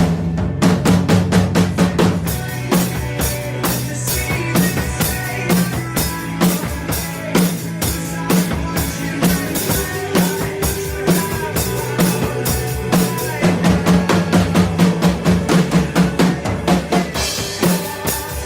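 Acoustic drum kit played along to the song's recorded band track: bass drum and snare in a steady beat with quick, evenly spaced cymbal strokes over the sustained instruments of the recording.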